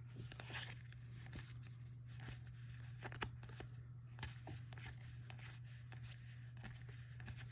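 Magic: The Gathering cards being slid and flipped through by hand: faint, irregular soft clicks and scrapes of card stock, over a low steady hum.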